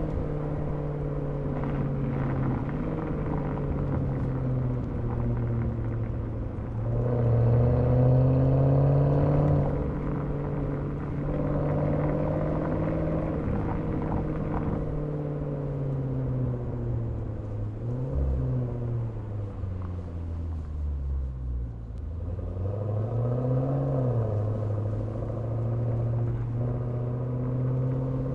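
Maserati Levante Trofeo's Ferrari-built twin-turbo V8 exhaust, recorded at the tailpipe while driving in traffic: a steady low drone that swells and rises in pitch under acceleration, loudest about seven seconds in. The pitch falls away as the car slows about twenty seconds in, then rises and drops once more briefly.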